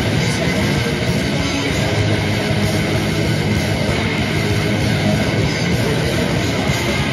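Live extreme metal band playing loud and without a break: distorted electric guitars, bass guitar and drum kit, with screamed vocals through a small PA.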